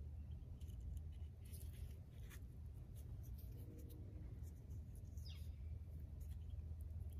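Faint rustling and small clicks of hands handling a dry hollow thistle-stem spindle wrapped in fibre cordage, with a velvet leaf stem insert, over a steady low outdoor rumble. A short high falling whistle about five seconds in.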